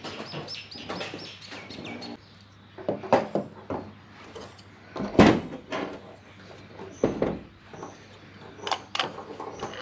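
Hand tools and small metal parts of a 1UZ VVTi drive-by-wire throttle body being handled during disassembly: a quick run of short high squeaks in the first two seconds, then scattered clicks and knocks, the loudest a little past the middle.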